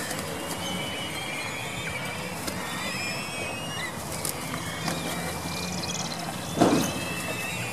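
A flock of black-eared kites giving thin, high whistling calls that overlap, over a steady low background noise, with a single dull thump about six and a half seconds in, the loudest sound.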